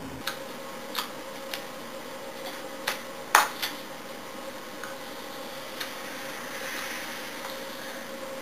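A few scattered sharp slaps and taps of hands striking each other or the body while signing in sign language, the loudest about three and a half seconds in, over a steady faint hum.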